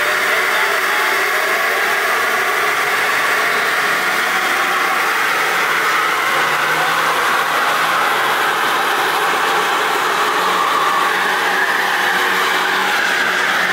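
Ford Mustang doing a burnout: the engine is held at steady high revs while the rear tyres spin and screech against the pavement without letting up.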